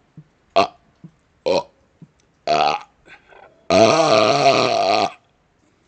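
A man burping: three short burps about a second apart, then one long drawn-out burp lasting over a second, the loudest, near the end.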